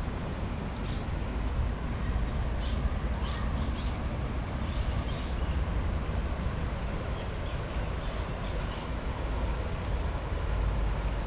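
Steady rushing of a fast-flowing river, with a few short bird chirps scattered through.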